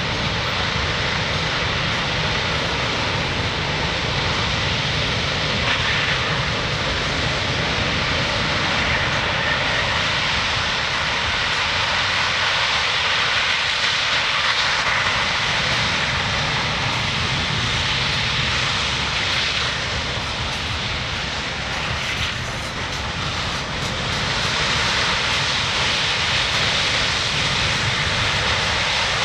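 C-17 Globemaster III's four Pratt & Whitney F117 turbofan engines running loud and steady as the airlifter rolls on the runway, with a brief dip in loudness about three-quarters of the way through.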